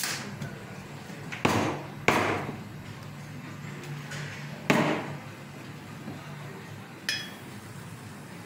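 Stainless-steel milk pitcher knocked and clinked on the counter and against another pitcher: four sharp knocks, the last with a brief metallic ring.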